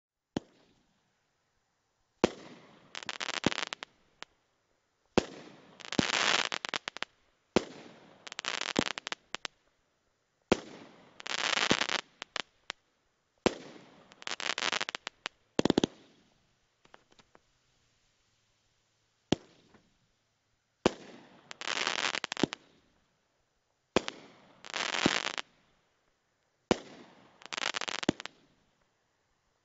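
Multi-shot consumer fireworks cake (Alamo Fireworks' The Bandit) firing about eleven shots, two to four seconds apart. Each shot is a sharp launch thump followed within a second by a crackling aerial burst about a second long. There is a longer pause between shots near the middle.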